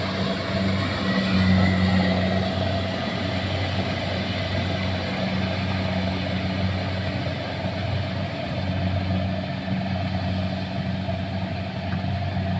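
Combine harvester engine running steadily: an even, low hum under a constant mechanical noise.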